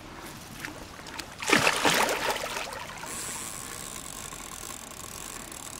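A hooked carp splashing and thrashing at the surface by the landing net, a loud burst of sloshing water about a second and a half in. From about three seconds in, a steady mechanical whir from the fishing reel as the fish pulls.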